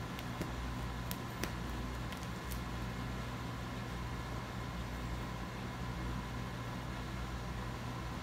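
Steady low mechanical hum of room tone, with a few faint clicks in the first three seconds.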